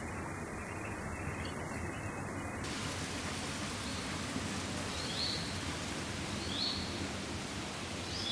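A steady, even hiss of background noise, with three short, faint high chirps about a second and a half apart near the end.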